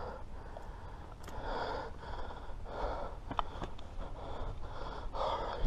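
A man breathing heavily close to the microphone, about four audible breaths roughly a second and a half apart, with a few faint clicks between them.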